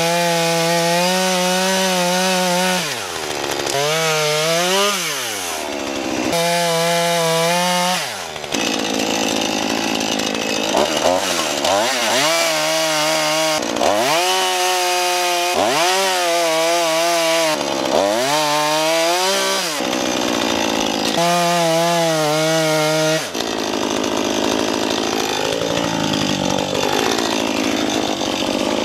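Two-stroke gas chainsaw cutting through a fallen tree trunk at high revs. Its engine pitch dips and climbs back again and again as the chain bites into the wood or the throttle is eased, with a longer stretch of lower, wavering revs near the end.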